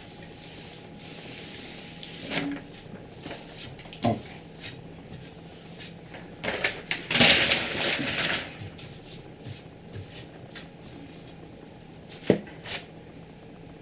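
Handling noises around a 3D printer bed: a few scattered knocks and taps, a sharp knock near the end, and about two seconds of loud rustling a little past the middle.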